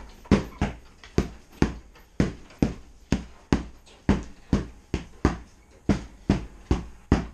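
Repeated strikes landing on a hanging heavy punching bag, a sharp thud about twice a second, often in quick pairs, each dying away briefly.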